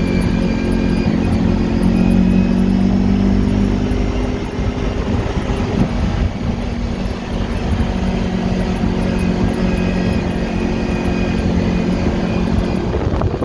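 Kawasaki 1000 ATV engine running steadily while riding, its pitch easing a little about four seconds in, over a low rumble of wind and terrain.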